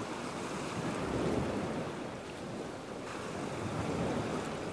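Sea waves and wind: a steady rushing noise that swells a little about a second in and again near the end.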